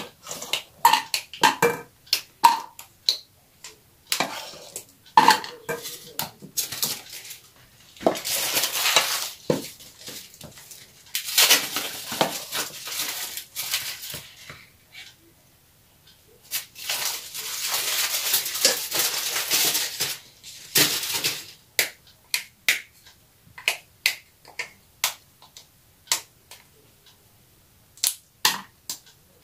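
A spoon and silicone spatula working thick custard cream: scattered clinks and taps against a metal pot and a glass baking dish, with several longer stretches of scraping as the cream is scooped and spread over the biscuits.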